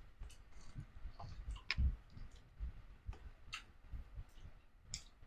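Close-up eating sounds while chewing fried fish: scattered wet mouth clicks and smacks at an uneven pace, a few sharper than the rest, over soft low thumps.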